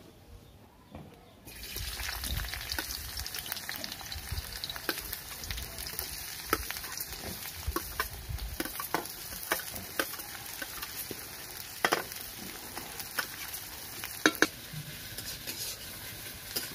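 Sliced onions sizzling in hot oil in a metal kadai. The sizzle starts about a second and a half in as the onions go into the pan, and a steel spatula clicks and scrapes against the pan as they are stirred.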